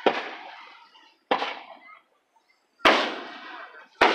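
Aerial firework shells bursting: four sharp bangs a little over a second apart, each trailing off quickly.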